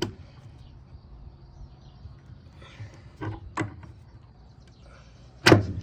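Hand tools being handled over wooden deck boards: two light, sharp knocks about three and a half seconds in, then one loud knock near the end.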